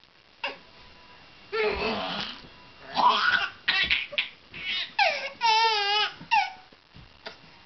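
A baby laughing hard in several high-pitched shrieking bursts, with one long wavering squeal about two-thirds of the way through. It is laughter so strong that it sounds almost like crying.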